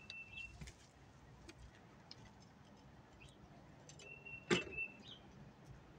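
Quiet outdoor sounds: scattered small clicks and rustles, with a sharper knock about four and a half seconds in. A thin, high, steady whistle sounds briefly at the start and again for about a second near the end.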